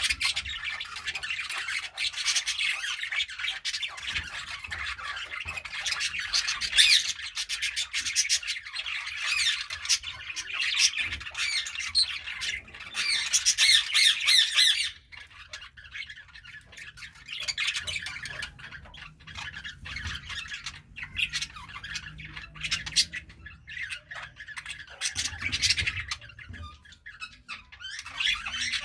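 Several budgerigars chattering and chirping in rapid, high warbling calls, dense and loud for about the first half, then sparser and softer, picking up again near the end.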